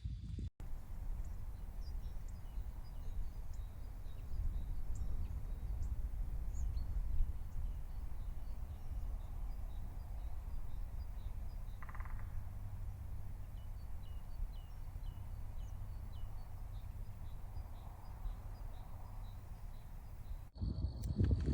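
Outdoor ambience on a rocky ridge: a steady low rumble with many faint, short, high chirps of small birds repeating throughout.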